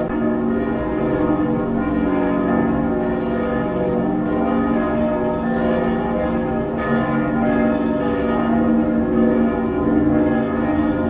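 Bells ringing: a dense, steady wash of overlapping ringing tones.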